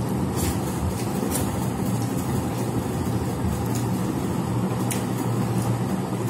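A steady low hum, with a few faint brief clicks of hands working food on metal plates.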